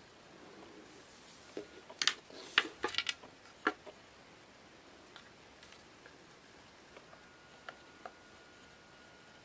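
Fishing-rod sections clicking and tapping against each other and a wooden tabletop as they are handled: a quick cluster of sharp clacks about two to four seconds in, then a couple of faint ticks later on.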